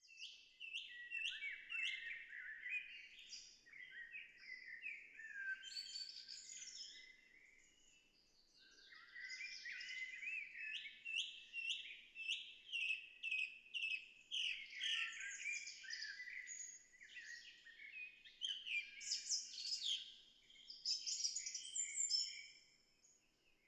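A songbird singing a fast, varied song of chirps and trills, in two long stretches with a short pause about eight seconds in.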